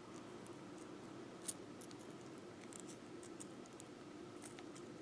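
Faint small clicks and scratches of fine beading wire being twisted between the fingers, over a low steady hum, with one sharper tick about a second and a half in.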